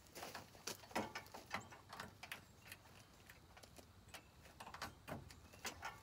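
Irregular light clicks, knocks and rattles of coiled air hoses and their metal fittings being handled and connected.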